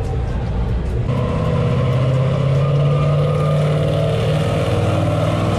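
Car engine running at low revs with a deep, steady exhaust note as the car rolls slowly forward, the pitch rising slightly about two seconds in, echoing in a concrete parking garage.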